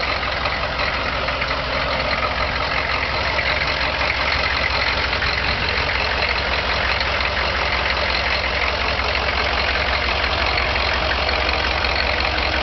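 Corvette's turbo diesel engine idling steadily.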